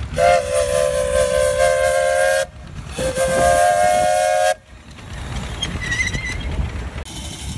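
Steam whistle blown in two long blasts, each a chord of several notes sounding together, the first a little longer than the second.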